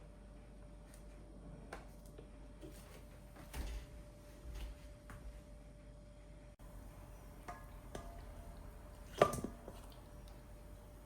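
Objects being handled: scattered light clicks and knocks, with one sharp clack that rings briefly about nine seconds in, over a faint steady hum.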